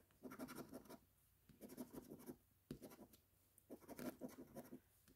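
A coin scraping the latex coating off a paper scratch-off lottery ticket, faint, in several short bursts of quick strokes with brief pauses between.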